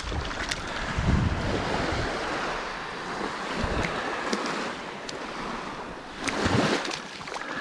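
Small surf waves washing up and back over the sand at the water's edge, with wind buffeting the microphone; a louder rush comes about six seconds in.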